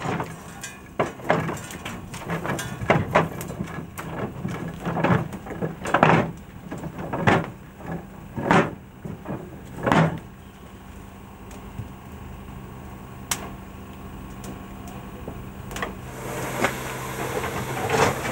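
Metal clanking and rattling as a steam locomotive's ash pan is emptied over the ash pit, with ash and clinker dropping, in bursts every second or so. Near the end a steam hiss rises.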